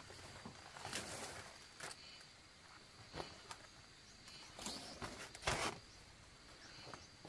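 Large cut banana leaves rustling and swishing as they are picked up and laid on the ground, in several short bursts, the loudest about five and a half seconds in. A faint steady high insect drone runs underneath.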